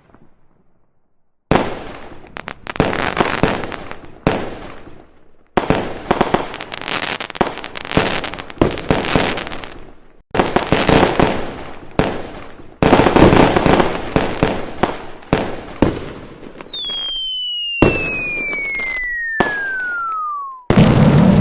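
Fireworks sound effects: bursts of bangs and crackling in abruptly cut segments. Near the end a single long falling whistle slides steadily down in pitch for about four seconds, then stops sharply as a boom begins.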